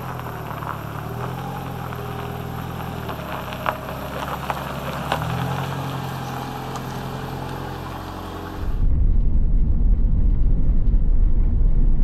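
Toyota HiAce campervan's engine running as it drives slowly past on a gravel road, its pitch shifting a few times, with a few small ticks. About nine seconds in it gives way abruptly to a much louder, deep rumble of driving, heard from the moving van itself.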